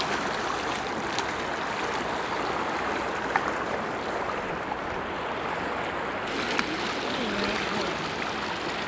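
Steady rush of a flowing river, with a few faint clicks now and then.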